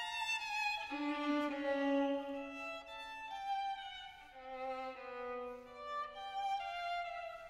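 Background music: a slow violin melody of long held notes, changing pitch about once a second.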